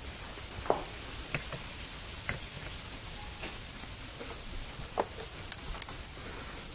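Scattered sharp clicks and ticks, about six of them at uneven gaps, over a faint steady hiss.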